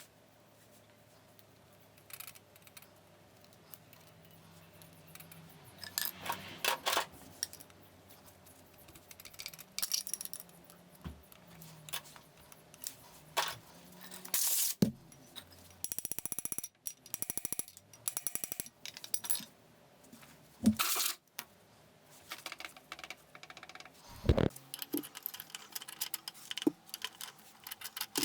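Metal clinks and knocks of hand tools and gearbox parts being handled, scattered through the stretch, with a fast run of even clicks for about three seconds midway.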